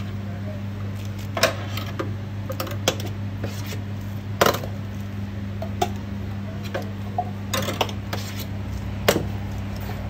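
Steel serving spoons clinking against stainless-steel food pans: a scatter of about seven sharp metallic clinks, loudest about four and a half and nine seconds in, over a steady low hum.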